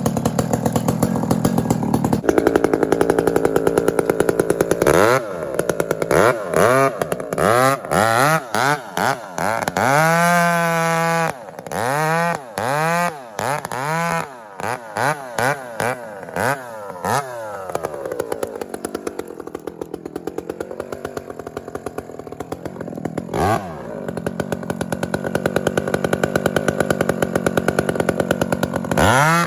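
Two-stroke chainsaw running at high revs. About five seconds in it is throttled up and down in a quick series of short revs, then settles into a steadier lower running with a couple more revs.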